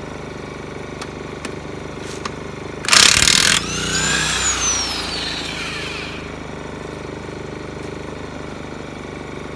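Porter-Cable 1/2-inch electric impact wrench hammering a truck's lug nut loose in one short burst about three seconds in, then its motor whining as it spins free and winds down over about two seconds. A small inverter generator hums steadily underneath.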